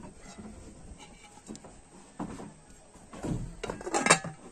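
Aluminium lid knocking and clattering as it is set onto a metal cooking pot, a few scattered knocks building to the loudest clatter about four seconds in.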